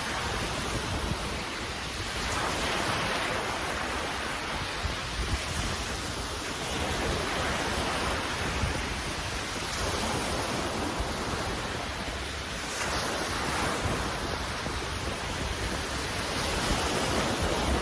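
Sea waves washing in, swelling every three to four seconds, with wind buffeting the microphone.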